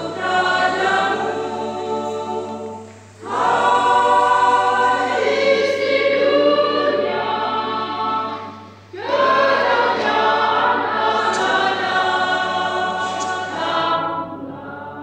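A small women's choir singing a hymn of praise in three phrases, with short breaths between them about three and nine seconds in; the last note fades away near the end.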